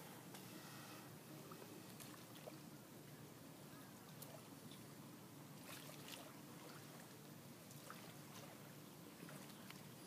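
Near silence: faint waterside ambience with soft water sounds and a few faint ticks.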